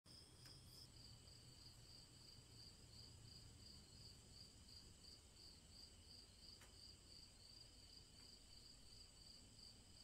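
Crickets chirping faintly in a steady, evenly pulsing high trill.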